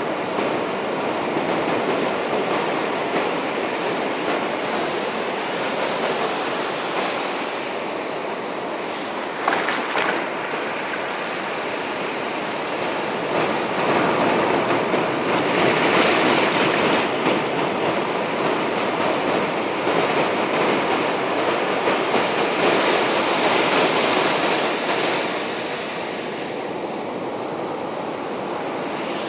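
Ocean surf breaking and washing up a sandy beach: a continuous rush of waves that swells louder about halfway through and again a little later. A brief knock about a third of the way in.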